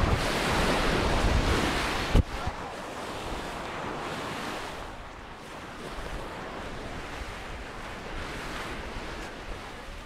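Sea waves washing onto a sandy beach, with wind buffeting the microphone. It is louder with a heavy rumble at first, then a sharp click about two seconds in, after which a softer, steady wash goes on.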